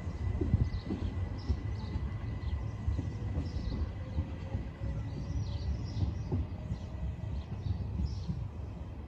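Southern Class 377 Electrostar electric train pulling away from the platform, its low rumble slowly fading as it recedes. Birds chirp repeatedly in the trackside trees.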